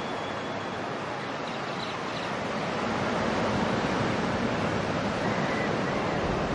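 Surf washing on a beach, the wave noise swelling louder about halfway through, with a few faint, brief bird calls over it.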